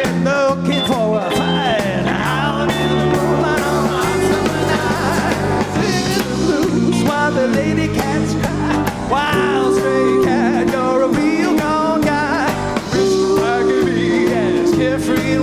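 Live rock band playing an instrumental passage: a lead line with bending notes over a steady bass line and drums.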